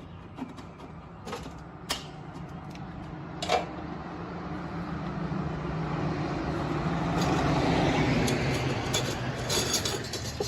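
Seamless gutter machine running, roll-forming a long length of gutter: a steady mechanical drone that swells to its loudest about eight seconds in, with a few sharp clicks in the first four seconds.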